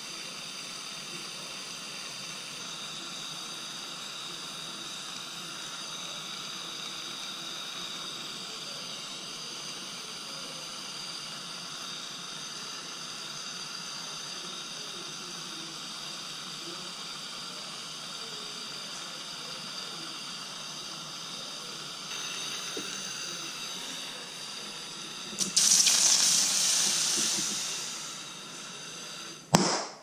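Brass hand soldering torch hissing steadily as its flame heats a silver piece to flow silver solder. Near the end the hiss grows much louder for a couple of seconds and dies away, and it ends with a sharp pop as the flame goes out.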